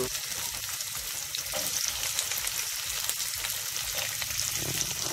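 Diced pumpkin, carrot and okra sizzling in a frying pan as they are pre-cooked, a steady crackling hiss.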